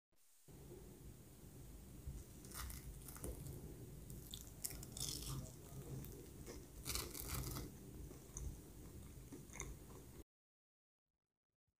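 Someone biting into and chewing a crispy breadcrumb-coated chicken donut: a run of irregular crisp crunches that cuts off abruptly near the end.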